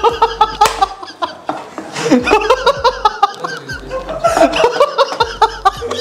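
Men laughing heartily, over background music with a repeating bass line.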